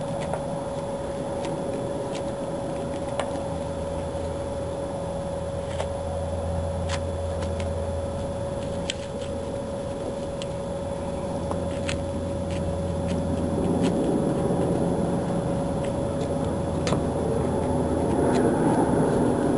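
A steady mechanical hum with a constant tone and a low drone, growing louder over the last few seconds, with scattered light clicks from handling a knife while trimming a vinyl roof covering along the windshield edge.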